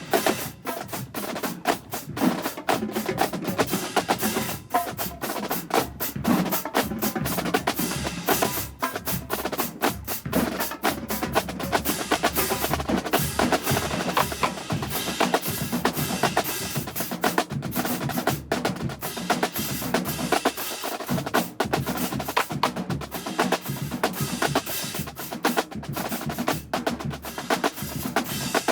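Marching band drumline playing a fast cadence: rapid snare drum strokes and rolls over bass drums.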